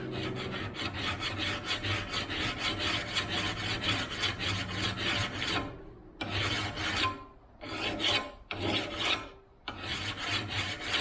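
A file rasping along the rails of a 24-inch Oregon chainsaw bar, dressing off the burr in quick strokes, about four or five a second. One long run for about six seconds, then four shorter bouts with brief pauses between.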